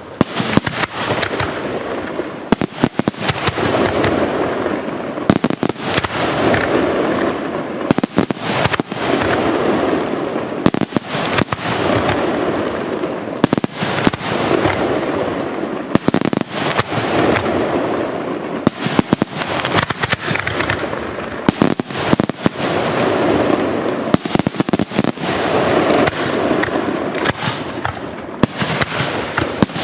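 Aerial fireworks in a dense barrage: shells bursting in rapid succession, with repeated waves of crackling from crackle effects that build and fade every few seconds.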